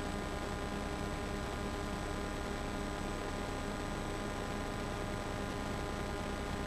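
Steady hiss with a low electrical hum and buzz from an old video-tape recording; no game sounds stand out.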